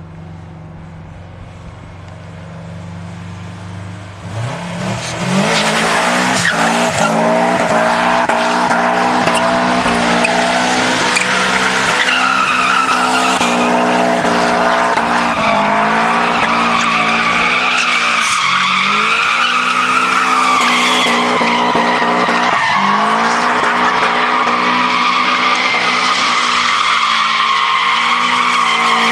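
A car engine idling low, then revving hard about four seconds in as the tyres break into a long, continuous squeal. The engine note dips and climbs again a couple of times while the tyres keep squealing, as in a burnout or drift.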